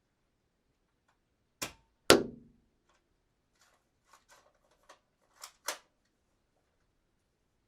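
Toy dart gun firing and being cocked. A click comes just before a loud, sharp shot about two seconds in that has a short ringing tail. Lighter mechanical clicks follow, then two sharp cocking clicks close together near the end.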